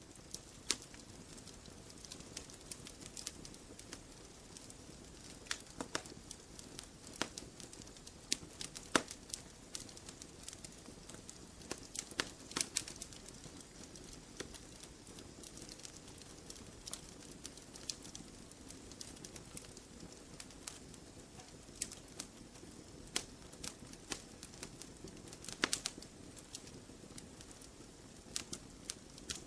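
Campfire of burning wood logs: a steady soft hiss under irregular sharp snaps and pops, some in quick clusters, with the loudest pops around the middle and near the end.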